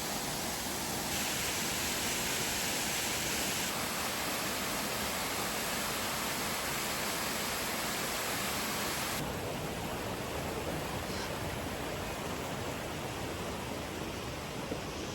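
Steady rush of flowing water, with its tone shifting abruptly about one, four and nine seconds in.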